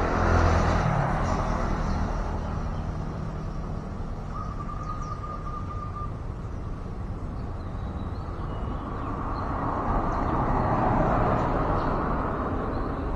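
Steady outdoor rumble, like distant traffic, that swells near the end, with a short rapid bird trill about four seconds in and a few faint high chirps after it.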